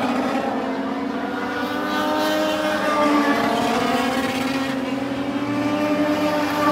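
A pack of Legends race cars at speed, their motorcycle-derived four-cylinder engines running at high revs. Several engine notes overlap and slide up and down in pitch as the cars go by.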